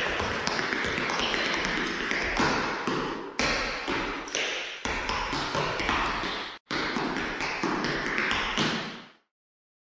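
Dense, rapid clicking and tapping: many small, sharp clacks overlapping. It breaks off briefly about six and a half seconds in and stops abruptly about nine seconds in.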